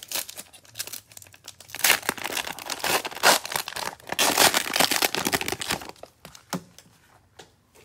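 Cellophane wrapper of a Prizm baseball cello pack being torn open and crinkled by hand as the cards are pulled out. There are loud stretches of crackling about two seconds and about four seconds in, with scattered crinkles before and after.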